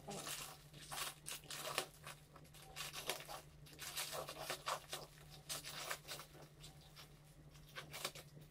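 Large scissors cutting through thin plastic wrapping on a long parcel, with irregular crinkling and tearing of the plastic. A steady low hum runs underneath.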